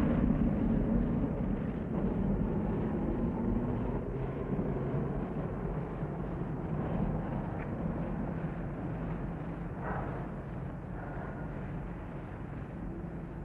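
Low, steady rumble of a motor vehicle's engine, loudest at the start and slowly fading.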